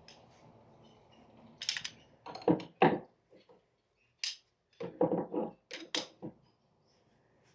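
Dorma TS73 door closers being handled and set down, making a series of clunks and knocks: a couple of loud ones about two to three seconds in and a cluster around five to six seconds.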